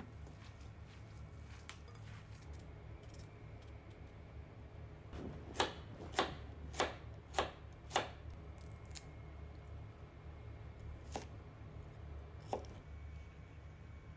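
Kitchen knife chopping on a cutting board: five even cuts a little over half a second apart, then two single knocks a few seconds later, over a low steady hum.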